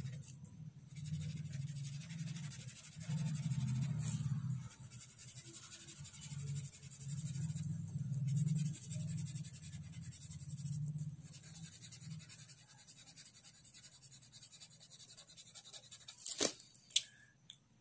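Felt-tip sketch pen rubbing across paper in repeated colouring strokes, with a short click near the end.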